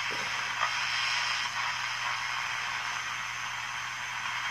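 Hallicrafters S-38 shortwave receiver hissing with steady band static as its tuning knob is turned between stations, with a low steady hum underneath.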